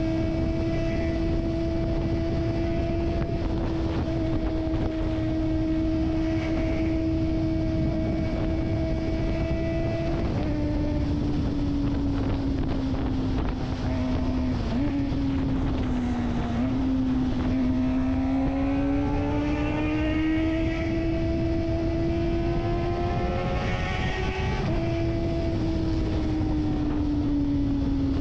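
Kawasaki Ninja ZX-25R's 250 cc inline-four engine running at high revs under way, a steady high-pitched note that drops about ten seconds in. Later it climbs steadily for several seconds and falls sharply at a gear change near the end, over wind buffeting on the microphone.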